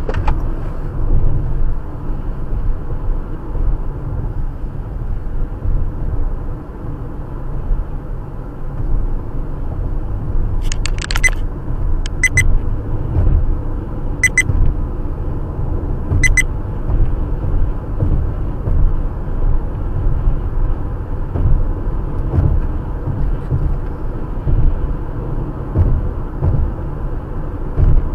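Car cabin road and engine rumble while driving at highway speed. A few short, high beeps come in a cluster around the middle, then single ones about two seconds apart.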